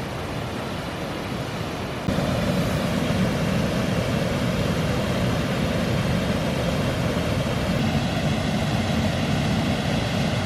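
High Force waterfall on the River Tees: a steady rush of falling water, stepping up louder and deeper about two seconds in.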